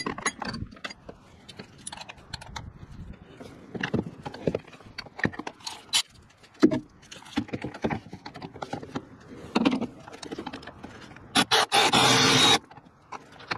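Irregular clicks, knocks and clatter of sockets, wrenches and hands working on a truck's brake master cylinder. About eleven seconds in, a Milwaukee cordless ratchet runs for just over a second, the loudest sound, and then cuts off sharply.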